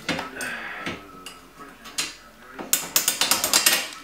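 Metal clicking and rattling as a shock bolt and bike shock absorber are worked by hand into steel shock tabs that do not line up easily, with a quick run of clicks near the end.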